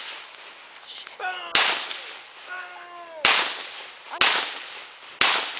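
Four gunshots about a second apart, each trailing off in a long echo.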